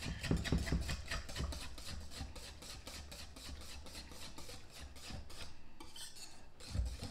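Wire whisk stirring barbecue sauce and grape jelly in a glass Pyrex mixing bowl, its wires scraping the glass in quick, even strokes. A dull knock comes near the end.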